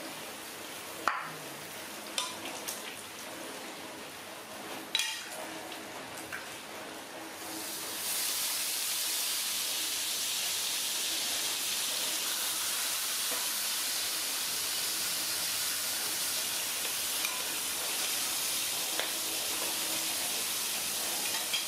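Horse mackerel frying in oil in a steel wok. A few metal clinks come first, then about eight seconds in a steady sizzle starts abruptly as the fish go into the hot oil, and it keeps going.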